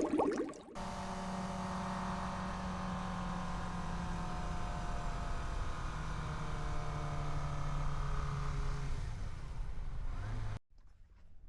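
Kawasaki motorcycle engine running while riding, its note steady and then dropping a little in pitch about six seconds in. It cuts off abruptly near the end. A short noisy sound opens the clip before the engine comes in.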